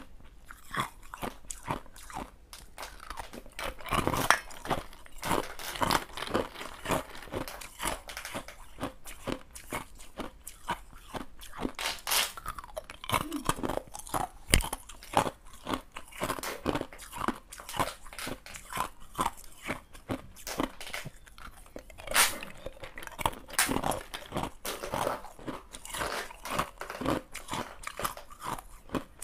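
Clear ice cubes being bitten and chewed: a constant run of sharp cracks and crunches, with several much louder bites scattered through.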